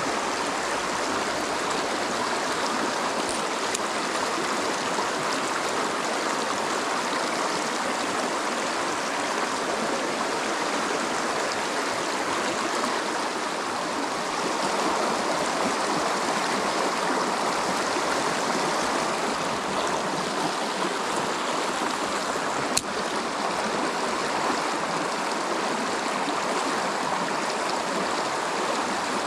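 Shallow rocky creek rushing and gurgling over riffles, a steady water noise, with a single sharp click about three-quarters of the way through.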